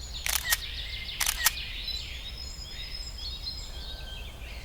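Camera shutter firing twice, each a quick double click, in the first second and a half, then birds chirping with many short high calls that fade toward the end.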